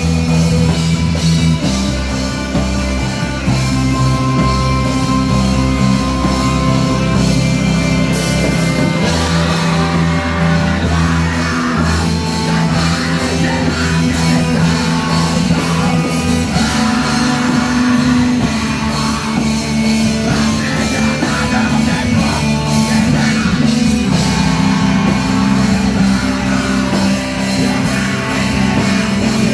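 Live heavy metal band playing: distorted electric guitars, bass guitar, drums and keyboard, with a singer's vocals over them. The sound gets fuller and harsher from about nine seconds in.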